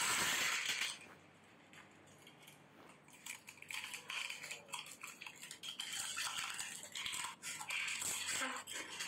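Crisp panipuri shells crackling as they are poked open and crunched while being eaten, loudest in the first second and again as a run of short crackles from about three seconds in, with light clinks of spoons against glass bowls.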